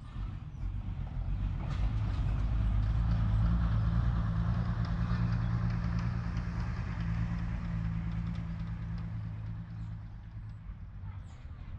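A motor vehicle's engine running with a low, steady note. It grows louder over the first four seconds, then slowly fades, like a vehicle passing slowly by.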